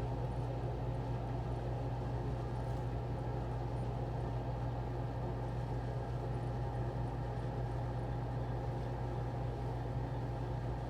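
Steady low mechanical hum, like a fan or small motor running, at an even level throughout.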